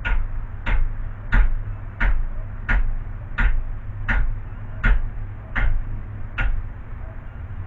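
Ten evenly paced hammer blows, about one every 0.7 s, each ringing briefly, beating down a dent in a car's radiator support cross frame to straighten it.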